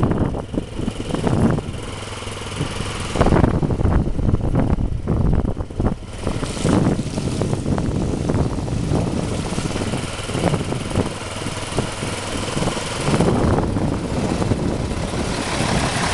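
Motorcycle engine running while riding over a rough, rutted dirt road, with wind buffeting the microphone and bumps jolting through.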